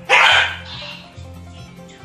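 A dog barks once, loudly and briefly, right at the start, over background music.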